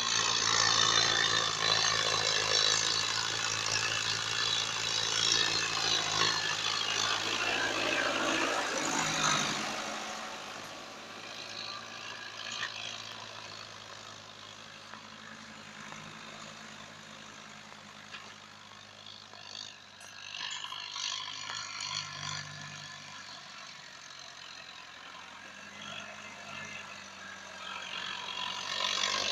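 Massey Ferguson 285 S 4x4 tractor's four-cylinder diesel engine running steadily as it drags a rear blade across the field, spreading manure. Loud at first, it fades for a long stretch from about a third of the way in as the tractor pulls away, then grows louder again near the end as it comes back.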